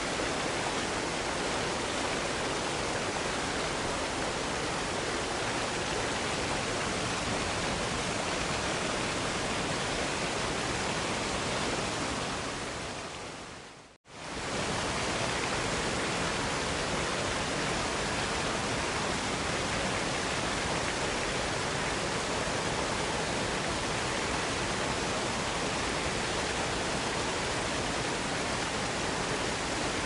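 Waterfall water rushing in a steady, even roar. Near the middle it fades out over about two seconds to silence, then cuts straight back in at full level: the join of a looped recording.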